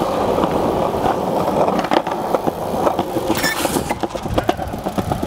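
Skateboard wheels rolling on street pavement: a steady rumble broken by sharp clicks as they cross cracks and joints.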